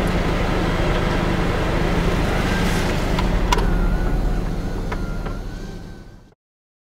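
Car engine running with road noise, heard from inside the cabin, with a few light clicks; it fades out to silence near the end.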